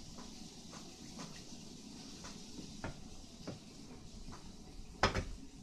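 Someone chewing a mouthful of tuna sandwich, with soft irregular mouth clicks and smacks and one louder knock about five seconds in.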